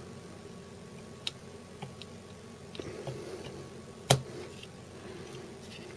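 Small sharp clicks and taps of an LCD module's header pins being pushed into a plastic solderless breadboard, with the loudest click about four seconds in.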